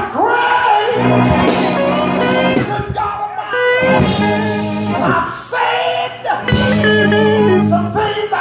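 A preacher's voice chanting in a sung, melodic style over held chords from the church's instruments. The chords swell in blocks of a second or two under the gliding voice.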